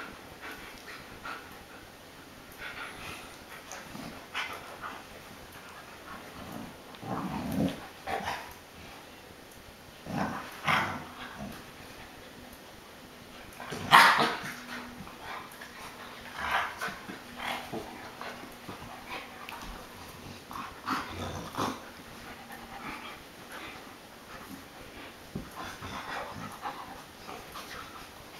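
An adult American Akita and an Akita puppy play-wrestling, with scattered play growls and short yips. The sharpest and loudest yip or bark comes about halfway through.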